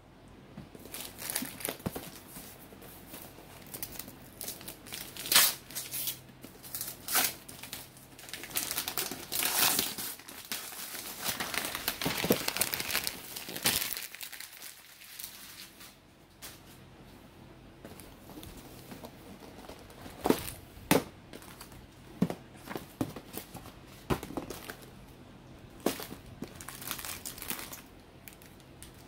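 Plastic snack packaging crinkling and tearing as a boxed snack is unwrapped and opened, with clicks and taps from the cardboard box and the wrapped cakes being handled. The crinkling is dense for the first half, then gives way to sparser, sharper clicks.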